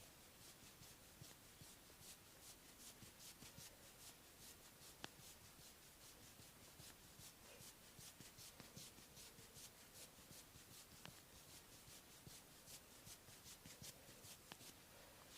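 Faint, quick rubbing strokes of hands on hair and scalp during a head massage, about three a second, with a few sharp clicks here and there.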